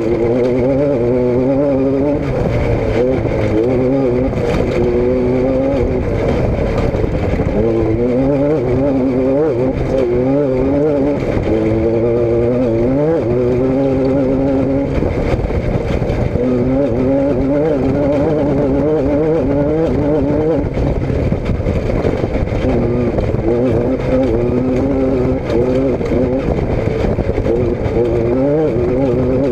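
Vehicle engine running, its pitch repeatedly climbing and dropping back, with short gaps around 7 s, 15 s and 21 s.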